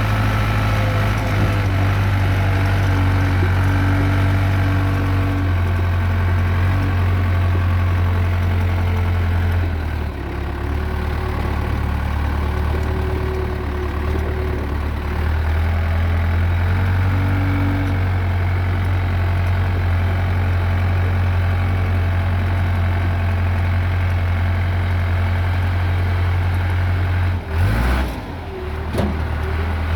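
Case 580D backhoe's diesel engine idling steadily after a radiator repair, its pitch shifting slightly a couple of times, with a few brief bumps near the end.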